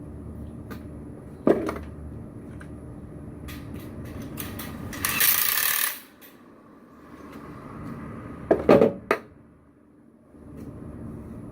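Metal knocks and clanks from handling a shopping cart and its wheel hardware: a sharp knock about a second and a half in, a brief rushing, hiss-like burst around the middle, and a quick cluster of knocks near the end.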